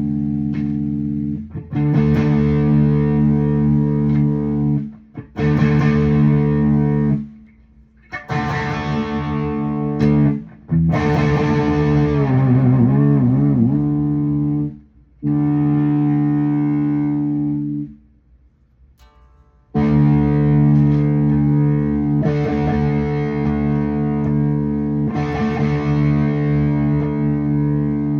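Washburn KC-40V electric guitar, amplified, playing chords that are struck and left to ring, broken by several short pauses. About twelve seconds in, the pitch of the ringing chord wavers down and up.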